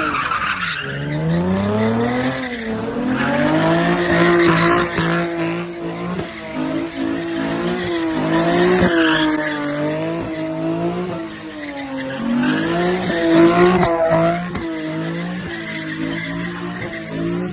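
A car doing a burnout: its engine is held at high revs, the pitch rising and falling repeatedly, while the spinning tyres squeal.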